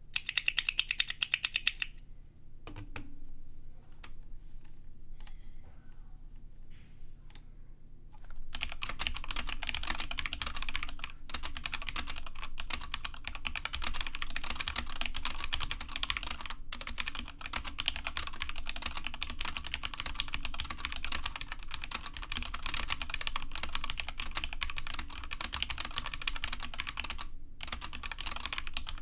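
Krux Atax Pro Retro mechanical keyboard with stock Gateron Pro Yellow linear switches being typed on. A fast run of keystrokes comes first, then a few seconds of sparse single key presses, then steady continuous typing from about eight seconds in, broken by a few short pauses.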